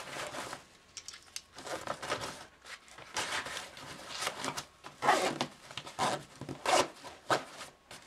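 Fabric of a tactical backpack rustling and rubbing as hands press and pull at its pouches and straps, with several short, sharp rasps, the loudest in the second half.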